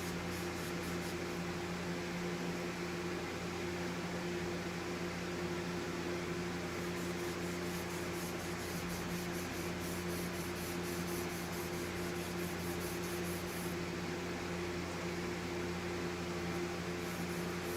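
Electric fan running steadily: a constant hum with an even rush of air.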